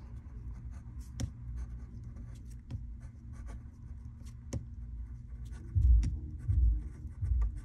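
Someone writing by hand: a run of short scratchy strokes and clicks, with several low thumps in the last couple of seconds.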